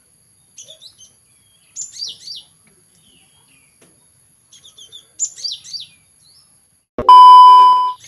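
Cinereous tits (gelatik batu) calling: three short phrases of quick, down-slurred high whistled notes, about three seconds apart. About seven seconds in, a loud, steady electronic beep cuts in and lasts about a second.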